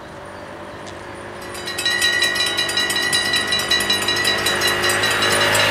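Automatic level-crossing warning bells start up about a second and a half in and ring on in a rapid, even clanging, the signal that the crossing has been triggered by an approaching train.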